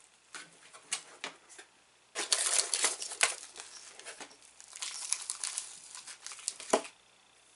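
Clear plastic snack wrapper crinkling as it is handled, in two spells about two and five seconds in, with a few light clicks and one sharp tap near the end.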